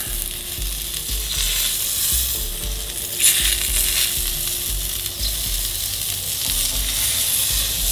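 Thick ribeye steak sizzling on aluminium grill grates over hot charcoal in a Weber kettle during the final high-heat sear of a reverse sear, a steady hiss with a few sharp pops of fat. A low rumble runs underneath.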